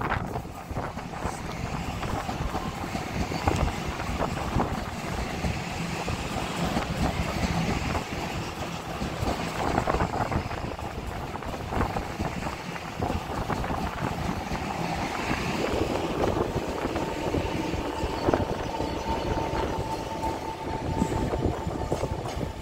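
TRA EMU700-series electric multiple unit running along the platform at close range, its wheels rumbling and clacking over the rail joints. A thin steady whine joins in about two-thirds of the way through.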